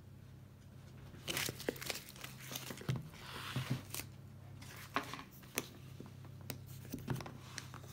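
Rustling and crinkling of protective wrapping and a paper hang tag as a leather handbag is handled, with a few sharp clicks and taps. A faint steady low hum runs underneath.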